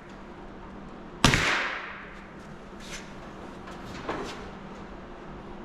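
Pneumatic brad nailer firing a nail about a second in, a sharp crack followed by a fading hiss of air, with a lighter second pop about four seconds in.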